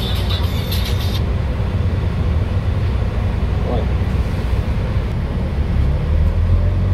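Dennis Trident double-decker bus engine running steadily under way, a low drone. A hissing rattle stops about a second in, and the engine drone grows stronger near the end.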